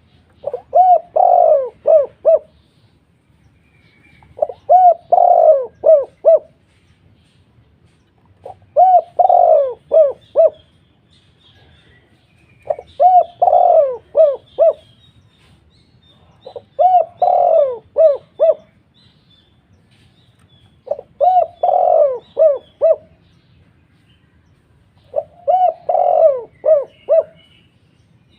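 A dove cooing a short phrase of about five deep notes. The phrase is repeated seven times, about every four seconds.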